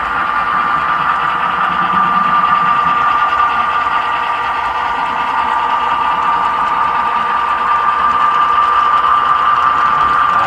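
Model train running on the layout: a steady mechanical whine with one high, even tone that holds throughout.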